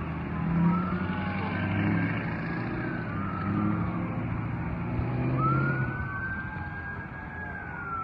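Fire apparatus sirens wailing, several at once, their pitches rising and falling and overlapping; one sweeps up about five seconds in, holds, and falls away near the end. A low rumble runs beneath.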